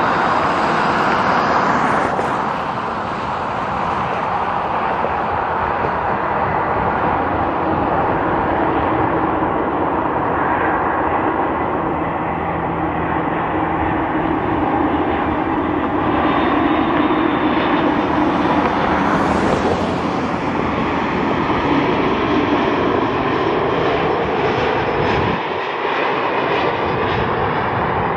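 Boeing 737 MAX's CFM LEAP-1B turbofan engines on final approach, a loud, steady jet rumble and whine.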